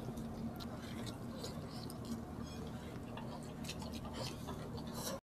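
Close-up eating sounds of people eating sisig and rice with their hands: chewing, small wet clicks of lips and mouths, and fingers working through the food, over a faint steady hum.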